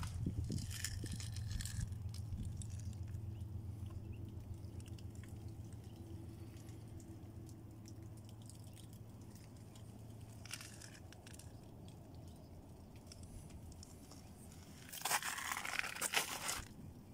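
Faint low rumble of camera handling, then footsteps crunching on crusted snow for about two seconds near the end.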